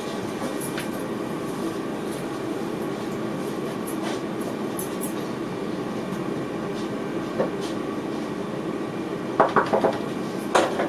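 Steady hum inside the driver's cab of an NS VIRM double-deck electric train, with a few short clicks and a brief cluster of louder knocks near the end.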